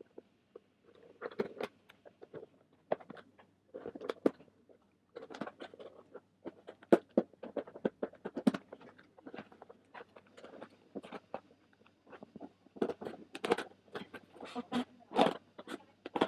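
Scissors cutting open a cardboard shipping box: irregular snips and scrapes, in quick runs, as the blades work through the cardboard.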